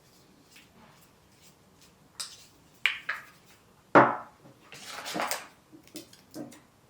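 Gimbal parts and packaging being handled: a few sharp clicks and knocks, the loudest about four seconds in, then a brief rustle and a couple of lighter taps.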